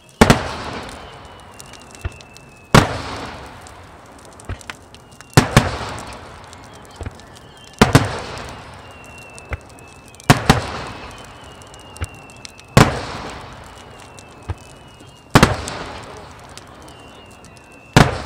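Aerial fireworks shells bursting in a steady series, one loud bang about every two and a half seconds, each followed by a fading rumble.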